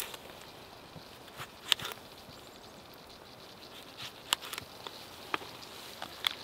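Carbon-steel Mora knife slicing a tomato on a plastic container lid: several sharp, irregularly spaced taps as the blade cuts through onto the plastic.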